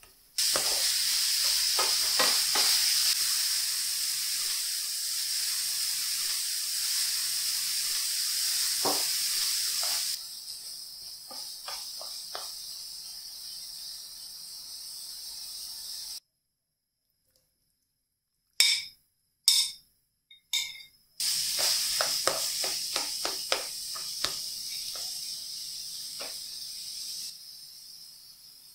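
Diced apples sizzling in light syrup in a nonstick frying pan, with soft clicks and scrapes from a plastic spatula stirring them. The sizzle is loudest for the first ten seconds and quieter after. Midway it breaks off into a couple of seconds of silence with a few sharp knocks, then the sizzle resumes.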